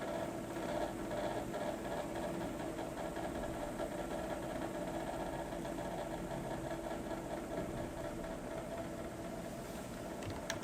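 A steady mechanical hum with a few faint clicks near the end.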